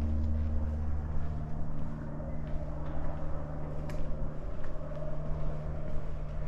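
A motor vehicle's engine running steadily, a low even hum, with a single sharp click about four seconds in.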